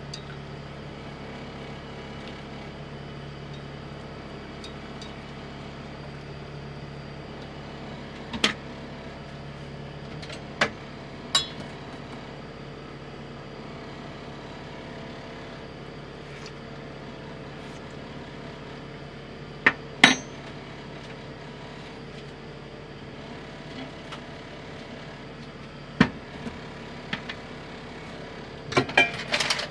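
Kitchen utensils and plastic containers knocking and clicking as they are set down on a wooden cutting board: scattered sharp knocks, with a quick cluster of clacks near the end, over a steady background hum from the stove.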